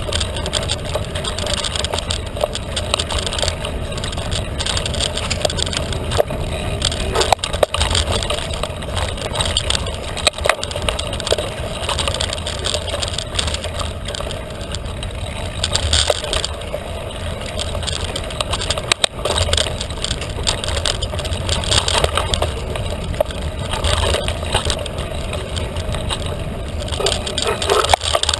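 Felt carbon 29er mountain bike ridden along a dirt trail, heard from on board: a steady rushing rumble, with tyres crunching over the ground and frequent short knocks and rattles from the bike.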